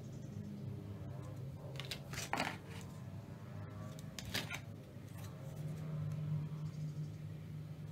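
Plastic blister packs and cardboard handled as dental products are lifted out of a box, with a few sharp plastic crackles about two seconds in and again near four and a half seconds, over a steady low hum.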